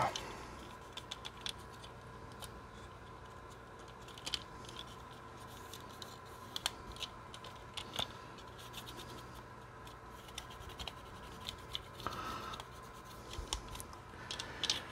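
Faint, scattered clicks and scratches of a plastic HO-scale model coach chassis being handled and turned over by hand on a cutting mat.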